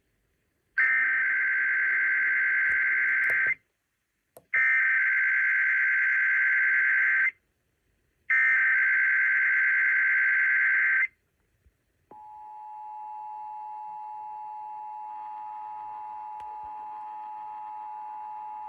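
Emergency Alert System SAME header: three identical bursts of data-modem warble, each nearly three seconds long, a second apart. About twelve seconds in, the steady two-tone EAS attention signal starts and holds, opening a coordinated monthly test.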